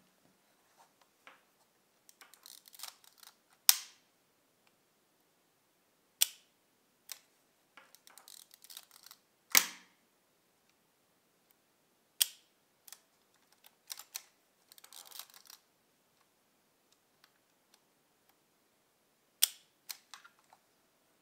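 Minolta Hi-Matic 7s rangefinder's leaf shutter being cocked and fired by hand. There are five loud, sharp shutter clicks, with short rattling, ratcheting clicks of the film advance between them. This is a test of whether the shutter blades, just cleaned of sticking with lighter fluid, now move freely.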